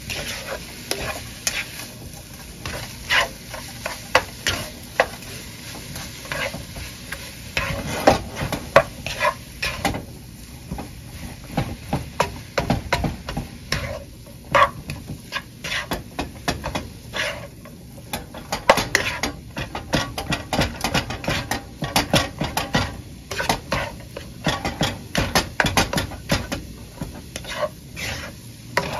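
A spatula stirs and turns fried rice in a hot nonstick skillet, making irregular scraping and tapping against the pan over a steady sizzle.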